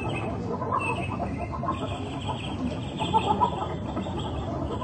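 Chickens clucking, with a steady high-pitched chirring behind.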